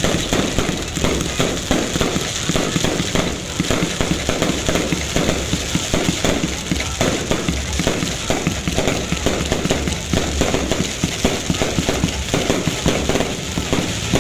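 Fireworks going off in a fast, unbroken string of bangs and crackles.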